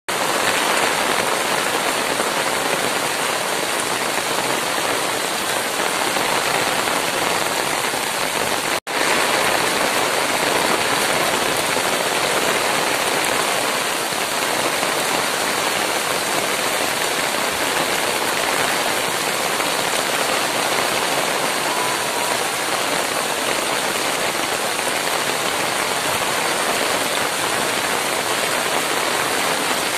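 Heavy downpour falling steadily on open water and trees, a dense, even hiss of rain. A split-second gap cuts the sound about nine seconds in.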